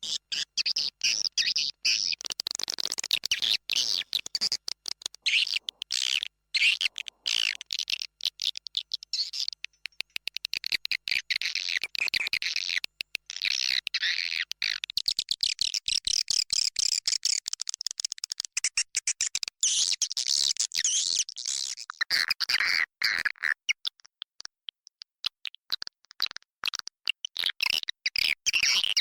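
Swiftlet lure call: a colony of edible-nest swiftlets twittering in a dense, rapid stream of high chirps and clicks, played as a lure to draw swiftlets into a nesting house.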